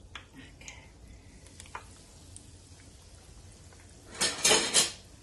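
Batter-coated hot dogs (corn dogs) frying in a pan of hot oil: a soft steady sizzle with a few small pops, then a louder rush of noise for under a second about four seconds in.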